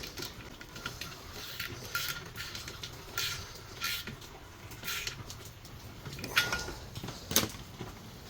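Hand tools and metal fittings clinking and scraping in short, irregular bursts while a socket wrench is used on the compressor's check valve fittings.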